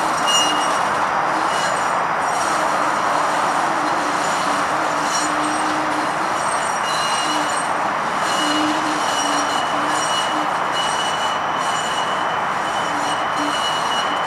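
Flexity Outlook streetcar rolling slowly around a tight curve of loop track, with a steady rumble of wheels on rail. A thin, high wheel squeal comes and goes at first and holds steady through the second half.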